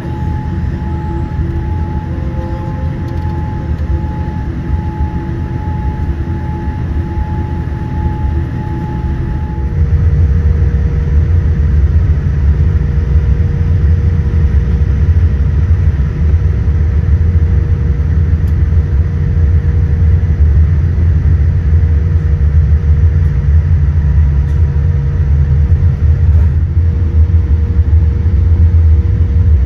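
Cabin noise of a Boeing 787-9 airliner taxiing: a steady low hum with two steady tones, which stop abruptly about ten seconds in as a louder low rumble takes over.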